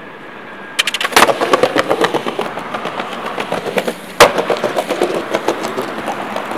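Skateboard wheels rattling and clacking over paving-tile joints. There is a sharp clack about a second in as the board hits the ground, and a loud landing clack about four seconds in.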